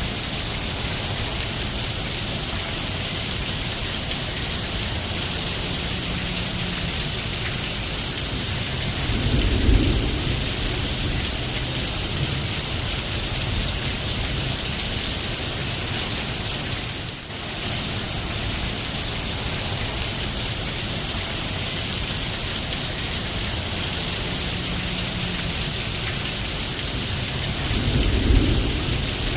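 Steady heavy rain falling, an even hiss throughout. Two brief low rumbles come through, about ten seconds in and again near the end.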